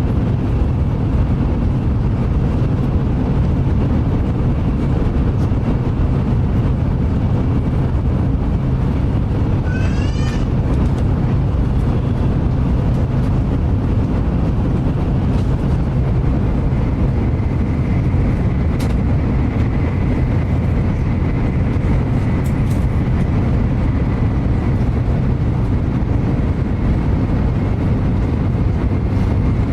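Shinkansen bullet train heard from inside the passenger car while running at speed: a steady deep rumble with the rush of wheels on rail and air along the body. About ten seconds in there is a brief high squeak that rises in pitch. Later a faint steady high whine comes in.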